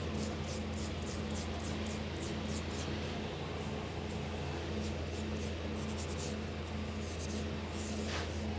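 A comb and fingers working through wet hair, making short scratchy strokes about three a second at first, then in sparser clusters. A steady low hum sits underneath.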